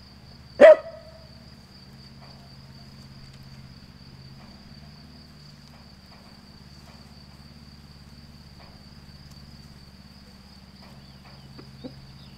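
A dog barks once, sharply, less than a second in, over a tractor engine running steadily. A thin, steady high insect trill runs underneath.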